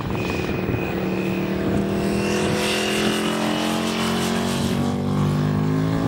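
Britten V-twin race motorcycle running hard around the track, its engine note holding a fairly steady pitch through the corner and rising near the end as it accelerates away.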